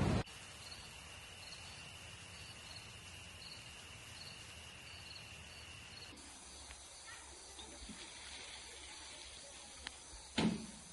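Faint outdoor ambience with insects: a steady high drone and short chirps repeating about every half second, then a few faint clicks and one knock near the end.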